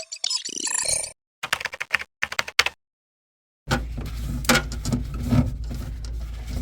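Bursts of rapid clicking like keyboard typing, broken by abrupt gaps of dead silence. A bit past halfway this gives way to a steady low hum with occasional knocks.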